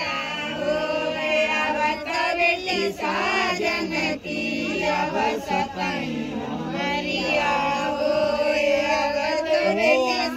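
Group singing: several voices singing a song together, with long held and gliding notes, at a wedding ritual.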